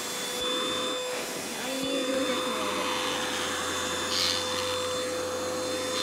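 Xiaomi SWDK KC101 Pro cordless dust-mite vacuum running steadily as it is moved over a bed sheet, with its motor's steady whine over a rush of suction noise.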